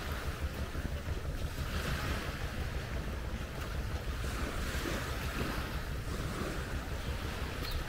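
Wind buffeting the microphone, a steady low rumble, over a soft outdoor hiss that swells and fades every couple of seconds.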